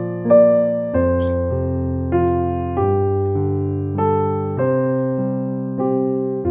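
Background music: a gentle electric piano playing slow chords, a new chord struck about once a second.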